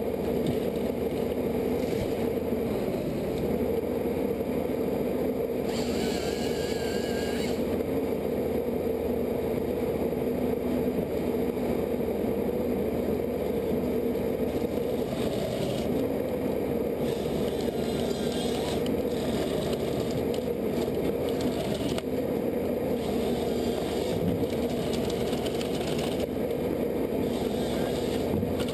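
A machine's engine running steadily at an even pitch, with a few short stretches of higher, scraping noise over it about a quarter of the way in, past the middle and near the end.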